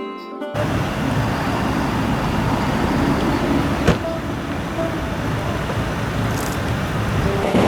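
Steady rumbling background noise, like wind or traffic, with a single sharp click about four seconds in.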